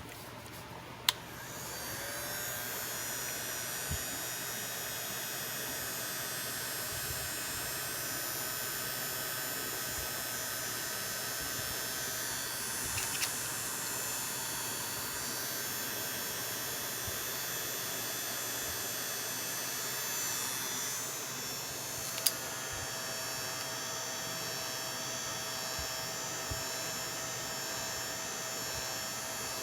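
A small electric motor switched on with a click, running up briefly in pitch and then running with a steady whine and hum; another click about two-thirds of the way through, after which the whine shifts slightly.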